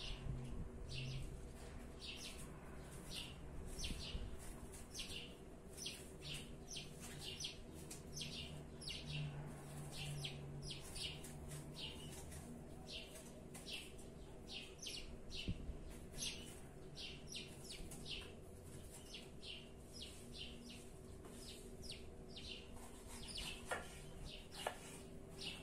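Small birds chirping over and over, short high chirps about two a second. Near the end come two sharp knife cuts through an apple onto a wooden cutting board.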